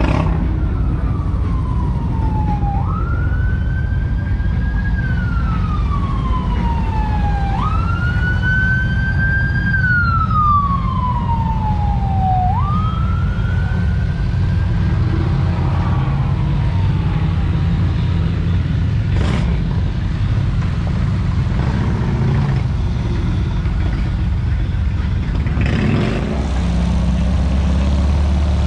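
Emergency vehicle siren wailing: each cycle climbs quickly, then slides down slowly, repeating about every five seconds and fading out after about fifteen seconds. A loud, steady low rumble runs underneath.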